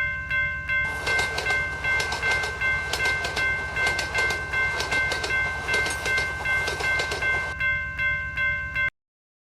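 A level-crossing warning bell rings over and over, a few strikes a second, while a train passes with clattering wheels from about a second in. Everything cuts off abruptly near the end.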